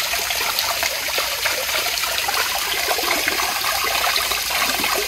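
Garden pond waterfall splashing and trickling steadily into the pond.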